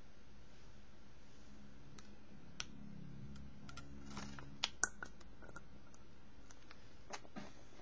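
A few light, sharp clicks and taps from handling the glass pipette dropper of an acrylic ink bottle, the dropper knocking against the bottle's neck. The loudest two come close together about five seconds in.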